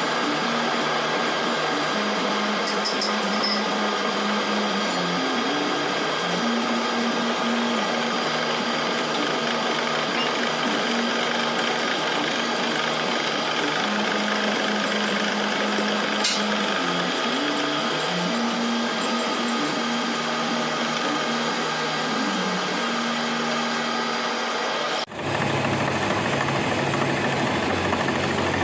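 Milling machine running, a steady mechanical whirr with a low tone that steps up and down in pitch every few seconds. About 25 seconds in, the sound cuts abruptly to a deeper machine hum.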